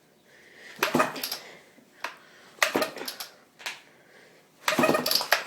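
Homelite XL12 two-stroke chainsaw being pull-started: three quick pulls of the recoil starter, each a short rasping whirr, about two seconds apart, and the engine turns over without catching.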